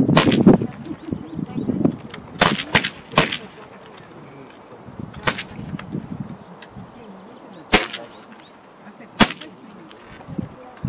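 Air rifle shots: about eight sharp cracks at irregular intervals, with a quick cluster of three or four a couple of seconds in and single shots spread through the rest.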